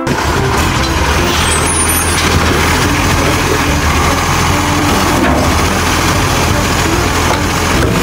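Acco side-loader garbage truck running at the kerb, its engine and hydraulics working steadily as the automated arm handles wheelie bins.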